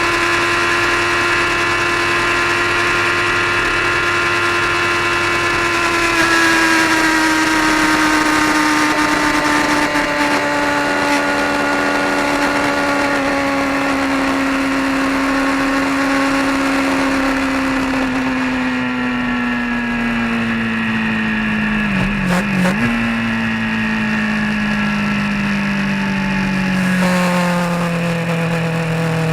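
A vehicle's engine running on the road, its pitch falling slowly as the engine slows, with a brief jump in pitch about six seconds in and again near the end.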